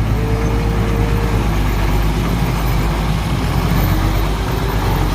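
Heavy diesel engine of a truck or excavator running steadily with a deep low rumble, a short steady whine sounding for about a second near the start.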